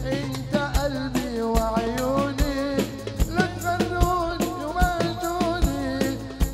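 Live Arabic wedding music for dabke: a wavering, ornamented melody over a held bass note and a steady drum beat, with a heavy hit about every 0.8 seconds.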